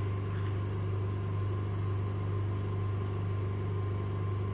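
Vacuum pump of a 20 L rotary evaporator running with a steady electric hum, holding the system under vacuum while feed is drawn in through the opened valve.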